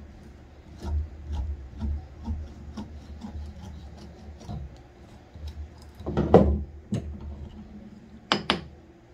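A twist drill bit turned by hand in a tap-wrench handle, boring into a wooden stick clamped in a vise: rhythmic rubbing and scraping, about two strokes a second. A loud knock comes a little after six seconds, and two sharp clicks come near the end.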